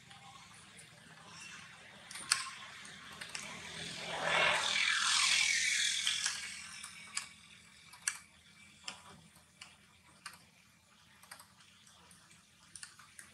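A macaque chewing and crunching corn, heard as scattered sharp clicks and crunches. A louder rushing sound swells and falls in pitch about four to six seconds in.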